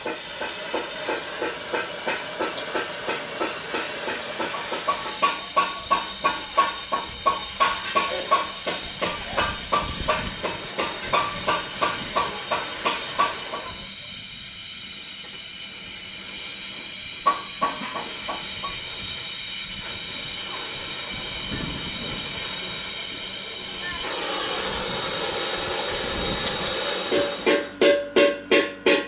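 Gas welding torch flame hissing steadily as it welds the seams of a hand-made metal monk's alms bowl. A regular beat of ringing knocks, about two to three a second, runs through the first half and comes back louder near the end.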